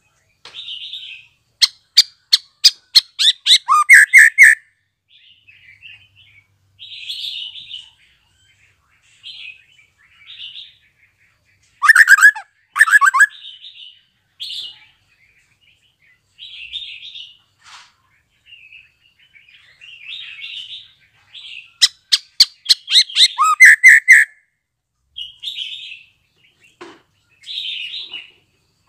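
Young male white-rumped shama (murai batu), just out of its spotted juvenile plumage, singing: soft, quiet twitters broken three times by loud phrases of rapid clicking notes, each ending in a lower, falling note.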